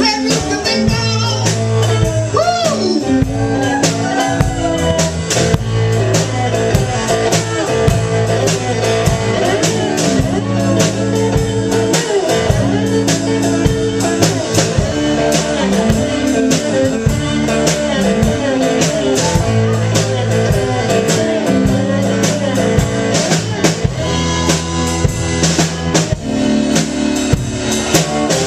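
Blues band playing an instrumental passage, with a drum kit keeping a steady beat under a repeating bass line and guitar.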